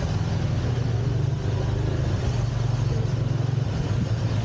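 Small engine of a tuk-tuk running steadily while riding, a low, even drone with road noise.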